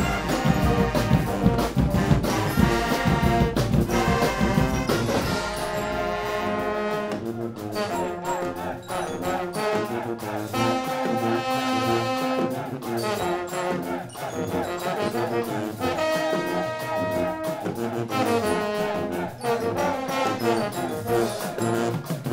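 Guggenmusik carnival band playing: trumpets, trombones, baritone horns and sousaphones together over drums and cymbals. The heavy low drumming drops away about seven seconds in, leaving mostly the brass.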